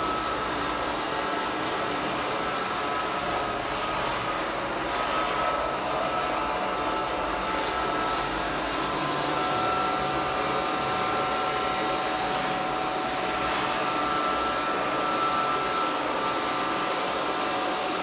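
OMXE 21 V cordless electric air blower running steadily, a motor and fan whine over rushing air, as its nozzle blows dust off a laptop keyboard.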